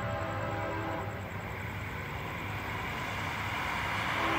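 Nathan K5HL five-chime air horn on an approaching CN SD70M-2 locomotive, sounding a long blast that ends about a second in and another that begins near the end. Under it runs the low rumble of the oncoming train, growing louder.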